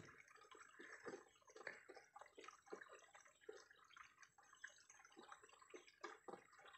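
Near silence: faint, irregular drips and light water lapping against the pond edge and wooden platform.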